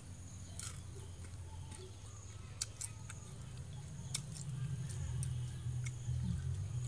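Eating deep-fried tarantula: scattered sharp crisp clicks and crackles as the spider's legs are snapped off and crunched. Under it runs a low steady hum that grows louder about halfway through, with a faint steady high tone.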